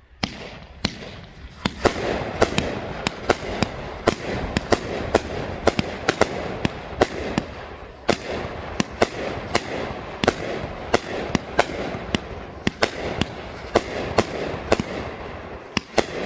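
A 30-shot, 500-gram consumer fireworks cake firing: a fast string of sharp shots and bursts, about two to three a second, over a steady hiss.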